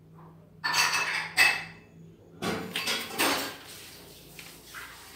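Three short bursts of clattering from small hard objects being handled and knocked together, in the first three and a half seconds.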